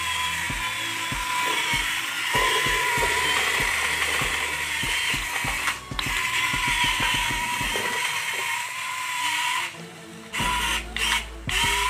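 Small RC tank's metal-gear micro servo drive running: a steady gear whine with clicking from the plastic tracks on tile, cutting out for a moment about ten seconds in.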